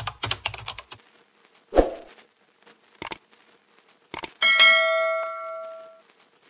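Subscribe-button animation sound effects: a quick run of mouse-like clicks, a single thump, two more clicks, then a bell-like notification ding about four seconds in that rings for about a second and a half and fades.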